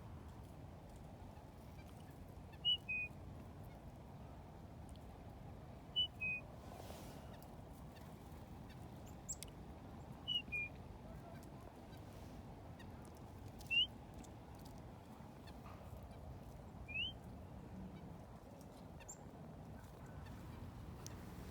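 A bird giving short, high call notes every three to four seconds. The earlier calls are a quick two-note drop and the later ones a single rising note.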